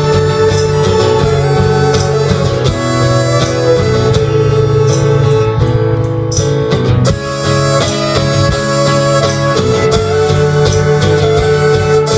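Live country band playing a song, with strummed acoustic strings keeping a steady beat under sustained melody notes.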